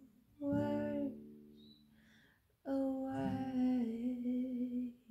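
A woman singing slow, drawn-out notes to her own acoustic guitar. The guitar is strummed twice, about half a second in and again just before three seconds, and the chords ring on between.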